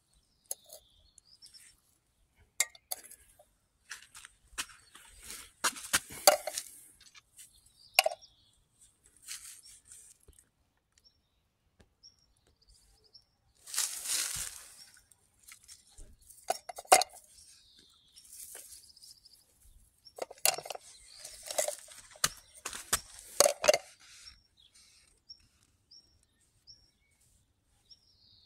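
Handling and footstep noises on a paved path: scattered sharp clicks and clinks, a brief rustle about halfway through, and clusters of clicks in the second half. Faint bird chirps come between them.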